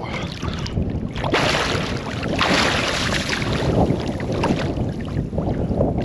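Sea water splashing and sloshing close by as a person swims on his back, in several louder surges over a constant rumble of wind on the microphone.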